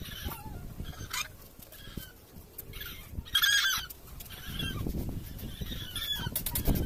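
Farm birds calling in repeated short honks. Underneath, a cordless drill driving screws runs in short spells, loudest near the end.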